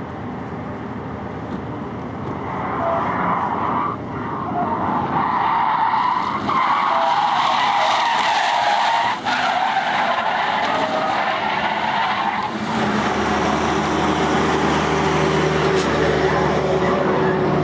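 Car drifting sideways at speed, its tyres screeching over a hard-running engine. The screech builds over the first few seconds and is loudest through the middle. Near the end a steady engine drone at high revs takes over.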